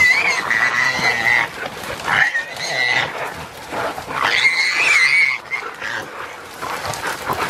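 Feral pig squealing in distress, three long, high, wavering squeals, as it is caught and held by pig dogs and a hunter.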